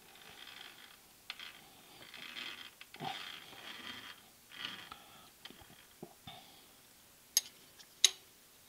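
Faint, intermittent scraping and rubbing of metal as the milling machine head is adjusted by hand while being trammed, with a few small clicks and two sharp metallic clicks near the end, the loudest sounds.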